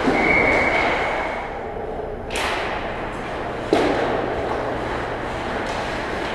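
Ice hockey play echoing in an indoor rink: a short steady high tone in the first second and a half, then a brief hiss of skate blades scraping the ice about two seconds in, and a thud about a second after that.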